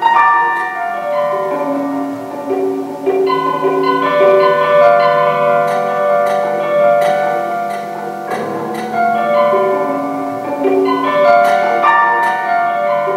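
Prepared grand piano, with screws, bolts, rubber and other objects wedged between its strings, played in a continuous passage of notes. The notes have sharp, percussive starts and ringing tails, giving the gamelan-like sound of a percussion orchestra.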